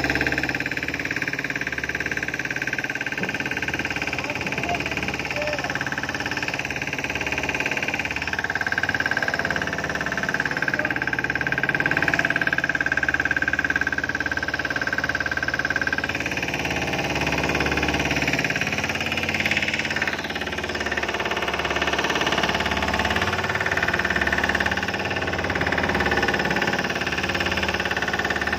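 Fishing boat's engine running steadily.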